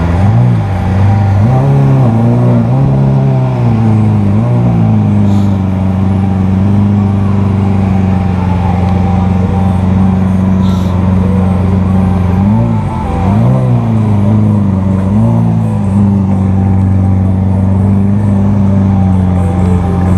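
Lamborghini Aventador's V12 idling loudly close by as the car rolls off slowly. It gives two sets of quick throttle blips, one just after the start and another past the middle.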